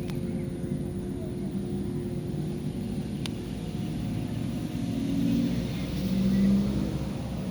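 An engine running steadily with a low rumble, growing louder about five seconds in, then easing; a single sharp click about three seconds in.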